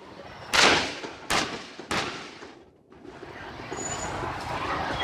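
Fireworks shells bursting: three sharp bangs within about a second and a half, the first the loudest, each with a short fading tail. A rising background noise builds near the end.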